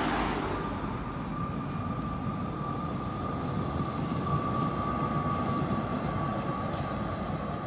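Street trams rolling past on their rails, a steady rumble of wheels and traffic, with a high, steady whine held for most of the pass.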